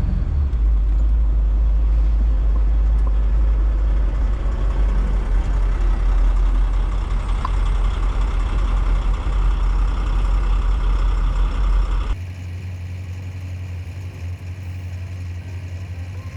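Truck running on the road, a loud steady low engine and road rumble. About twelve seconds in it cuts off abruptly to a much quieter steady low hum.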